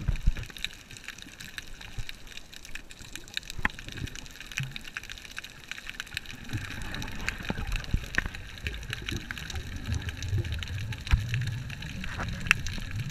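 Underwater sound picked up by a snorkeler's camera: a muffled wash of moving water with scattered sharp clicks, and a low rumbling surge that builds from about halfway through.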